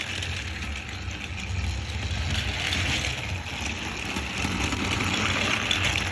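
Battery-powered toy Thomas engine running along its track, pulling cars loaded with wobbling cargo: a steady motor whir with wheel and track noise.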